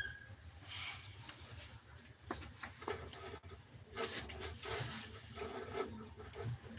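Scratchy rustling and scraping in the pigeon nest, in several short bursts about a second apart, as the birds shift about in the nest material.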